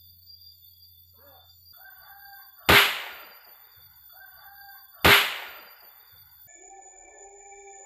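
Two loud bangs about two and a half seconds apart, each ringing away briefly: a homemade match-head firecracker made of an iron ring and 8 mm rebar going off as it is struck on a rock. A rooster crows faintly in the background.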